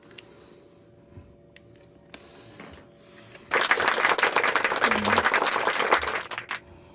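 A dense crackling rustle about three seconds long, beginning about halfway in and stopping abruptly, as something is handled during the teardown.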